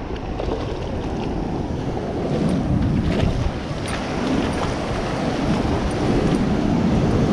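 Surf washing around in shallow water with wind buffeting the microphone, a steady low rushing noise.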